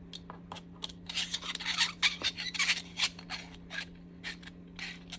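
Flat-blade screwdriver turning the small screw in the bottom of a mezuzah case closed: a quick, irregular run of short scraping strokes.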